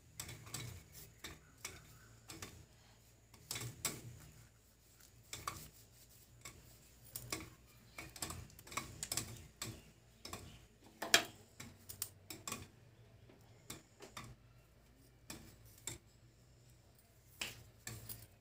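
Popcorn kernels popping inside a closed aluminium pressure cooker: irregular sharp pops and ticks, sometimes several a second, with one louder pop about eleven seconds in.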